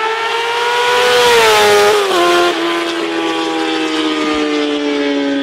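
Yamaha R6 inline-four engine running at high revs through a shorty exhaust with only a small baffle and no muffler. The pitch climbs a little, drops sharply about two seconds in, then holds at a lower, steady note.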